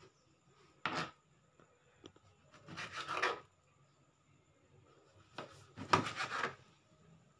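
Kitchen knife slicing boiled chicken offal and unlaid eggs on a plastic cutting board: short scraping cuts of the blade against the board. One comes about a second in, a run around three seconds, and another run around six seconds.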